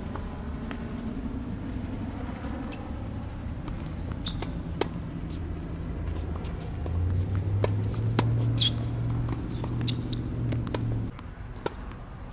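A motor vehicle's engine running nearby with a steady low hum, growing louder about seven seconds in and then cutting off abruptly about eleven seconds in. Scattered sharp clicks and a brief high squeak are heard around it.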